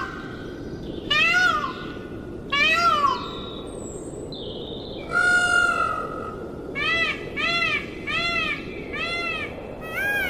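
An animal calling over and over, each call a short pitched note that rises and falls. Three longer calls come about a second and a half apart, then one longer, steadier call about five seconds in, then a quicker run of short calls about two a second.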